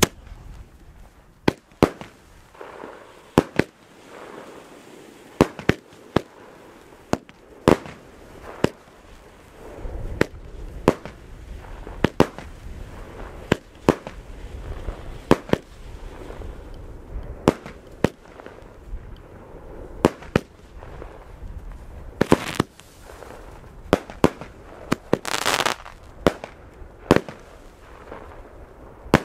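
Consumer fireworks going off: a long run of sharp bangs, about one or two a second and irregularly spaced, with two longer noisy bursts near the end.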